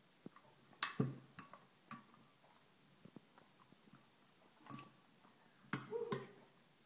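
A metal spoon clinking against a ceramic bowl and against a dog's mouth as soup is spooned in, with soft eating sounds between. The clicks come scattered: a sharp one just before a second in, a few lighter ones after, one near five seconds and a small cluster around six seconds.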